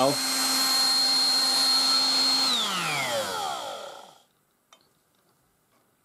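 1960s Dateline DLMD hairdryer's single-speed blower fan running with a steady whine and rush of air, then switched off about two and a half seconds in. The motor winds down with a falling pitch and fades out over about a second and a half.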